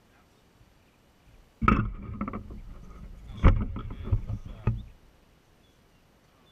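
Close knocking and rubbing noise, with a short quick run of clicks, as a hooked fish is played on a fly rod and reel. It starts about a second and a half in and stops about three and a half seconds later, with the loudest knock near the middle.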